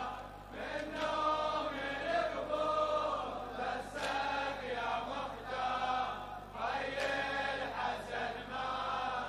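Congregation of men and boys chanting the refrain of a Shia latmiya lament together, many voices in unison without the lead singer, with chest-beating.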